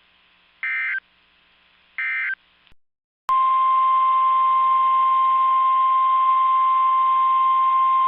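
Emergency alert signalling: two short, harsh digital SAME data bursts about a second apart, then a brief pause and a click, then the NOAA Weather Radio warning alarm, a single steady high tone held for about five seconds. Together they announce a new severe weather warning.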